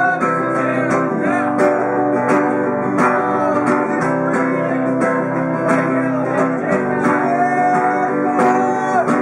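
Acoustic guitar strummed in a steady rhythm: the instrumental intro of a song before the singing begins.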